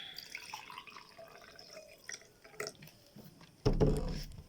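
Liquid being poured and sloshing, with shifting watery tones in the first two seconds, then a loud thump about three and a half seconds in.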